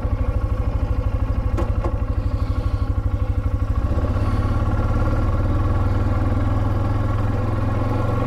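Polaris Sportsman 570 ATV's single-cylinder engine running as it is ridden. A rapid low pulsing evens out to a steadier drone about four seconds in, with two short knocks near two seconds.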